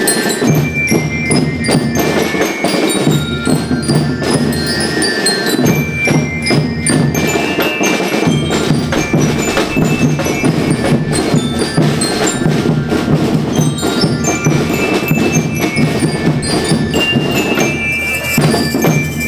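School rhythm band playing: bell lyres ring out a melody of clear high notes over dense, steady snare and bass drum strokes.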